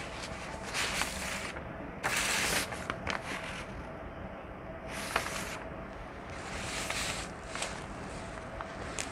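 Sheets of paper rustling in a few short bursts as pages are handled, with some faint clicks over a low room hum.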